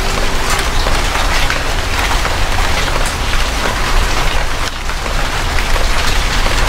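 Heavy rain: a steady dense hiss with many sharp drop strikes on leaves and hard surfaces, over a steady low rumble.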